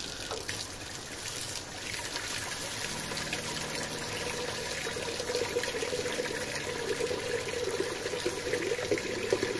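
Water running steadily from a brass tap into an aluminium pot set in a stainless steel sink, filling the pot.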